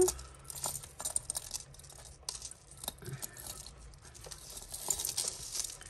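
Tangled costume-jewellery necklaces being picked apart by hand: metal chains and beads clinking and jingling in quick, irregular clicks.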